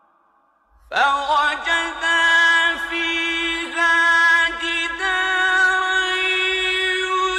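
A male voice chanting Quranic recitation (tajwid), in long, drawn-out melodic phrases with held notes and ornamented turns. It comes in about a second in, after a pause that carries only a fading echo.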